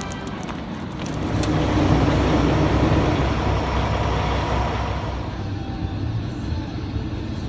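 Vehicle engine and road noise that swells about a second in and eases after about five seconds, over a steady low engine hum.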